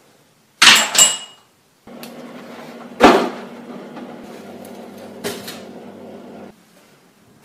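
Several sharp bangs like doors slamming indoors: two close together about half a second in, which are the loudest, another about three seconds in and a lighter one about five seconds in. A steady low appliance hum runs between the second and the sixth second.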